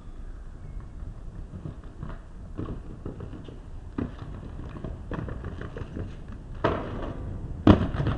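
Inline skate wheels rolling over paving stones, with a low rumble and scattered small clicks and clacks, then two louder clacks about seven and eight seconds in.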